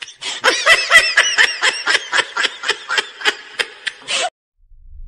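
A man laughing hard in a rapid string of short bursts, about four a second, which cuts off suddenly about four seconds in.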